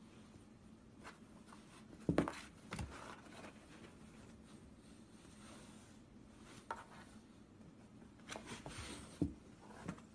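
A cat squeezing into a cardboard box through a hole in its top: faint scratching and rubbing of paws and fur on cardboard, with a few soft knocks, the loudest about two seconds in and again near the end.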